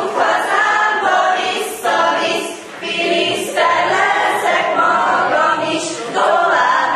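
A group of teenage pupils singing a farewell song together, in sung phrases with short breaths between them.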